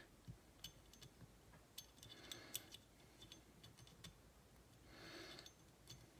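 Faint, scattered small clicks of steel parts on a SIG P365 pistol slide and a punch as the slide cover plate is worked in against the firing pin spring, with two soft rustles in between.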